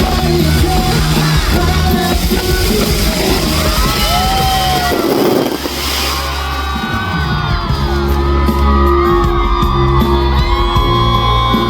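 Loud concert music with a crowd shouting and screaming over it.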